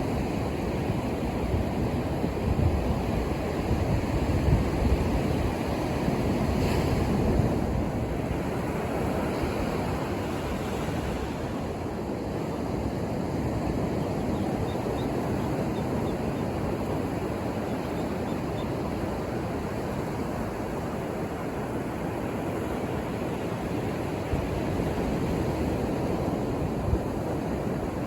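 Ocean surf breaking and washing on a beach, a continuous rumbling wash with louder surges in the first several seconds, plus some wind on the microphone.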